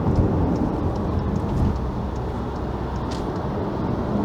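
Steady road and engine noise from a car at highway speed, heard from inside the cabin.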